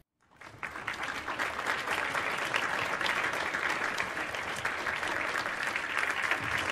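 Crowd applause: many hands clapping, fading in about half a second in and then holding steady.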